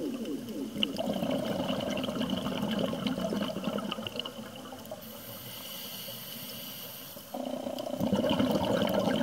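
Underwater recording of a scuba diver's exhaled bubbles from the regulator, gurgling and bubbling, getting louder again about eight seconds in.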